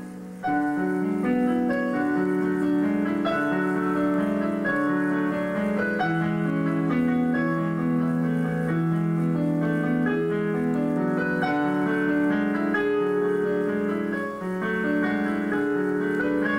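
Live piano music on a stage keyboard: from about half a second in, a steady, flowing figure of notes.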